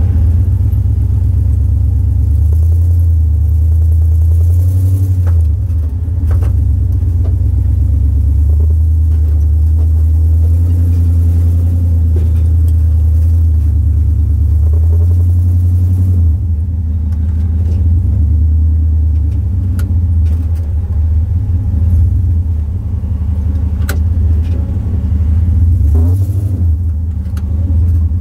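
Off-road vehicle's engine running steadily at low revs while crawling on a rock climb, a deep steady rumble, with a few sharp clicks and knocks along the way.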